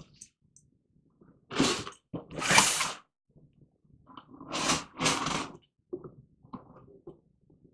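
Tape and wrapping being torn off a cardboard shipping box: four long tearing rips in two pairs, the first pair about a second and a half in and the second about four seconds in. Lighter cardboard scuffs and knocks come in between.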